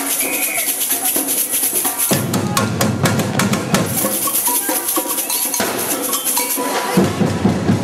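Street procession percussion: drums and shakers playing. A run of sharp strikes comes in the middle, and the heavier drumming cuts in abruptly about two seconds in and again near the end.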